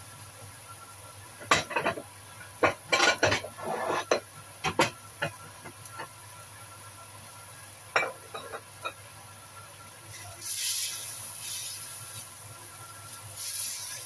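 A spatula scraping and tossing a stir-fry in a wok, in a quick cluster of strokes in the first few seconds and a few more about eight seconds in. Toward the end the food sizzles, swelling up twice.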